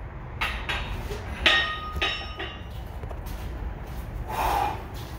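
Cast-iron 10-pound weight plates clanking against each other and the steel barbell sleeve as they are slid off. There are three sharp metallic clanks in the first two seconds, each ringing briefly.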